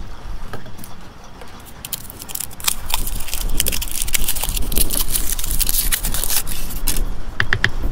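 Aluminium foil crinkling as it is unwrapped by hand, a dense run of crackles from about two seconds in until near the end, followed by a few sharp clicks.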